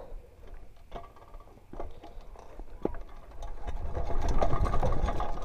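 Mountain bike rolling down a rocky dirt single track: tyres crunching over stones and the bike rattling with rapid clicks, getting louder over the last second and a half.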